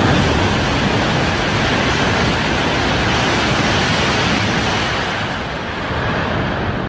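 Shinkansen bullet train passing through at full speed: a loud, steady rush of air and wheel noise that is loudest at the start and eases slightly as the train draws away.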